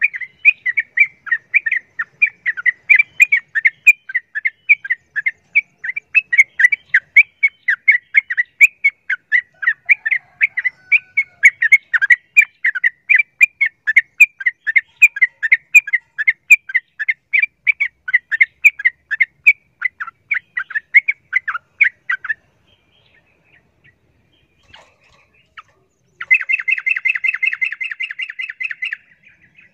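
Yellow-vented bulbul calling heatedly: a long run of sharp, rapid chattering notes, several a second, that stops about 22 seconds in. After a pause comes a faster, rattling burst near the end. This is the noisy, fired-up chatter of a bulbul roused to fight.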